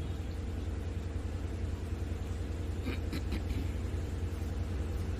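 Steady low hum and rumble in a pause of speech, with a few faint clicks about three seconds in.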